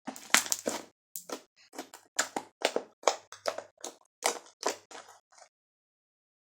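Fluffy slime worked by hand, giving a run of short sharp pops and squelches, about two or three a second, that stops about five and a half seconds in.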